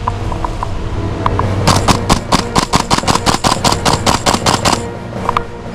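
Tokyo Marui MTR-16 gas blowback airsoft rifle firing a fast string of about twenty shots over some three seconds, starting a little after the first second and stopping suddenly. Background music plays throughout.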